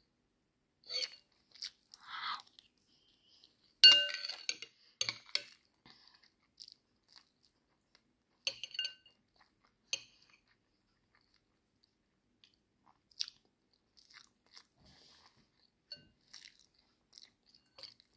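Close-miked chewing of rice soaked in milk: intermittent wet mouth clicks and smacks with quiet gaps between. A sharper click about four seconds in is the loudest sound.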